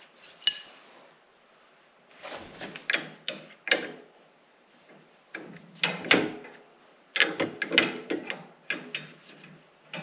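Wrench clinking and scraping against steel hydraulic hose fittings as they are tightened on a compact tractor loader, in short clusters of metallic clanks and rattles. One sharp ringing clink comes about half a second in.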